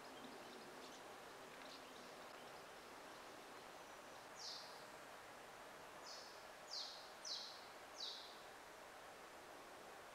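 Faint outdoor ambience with a small bird giving five short, high, downward-sliding chirps: one about halfway through and four in quick succession a little later.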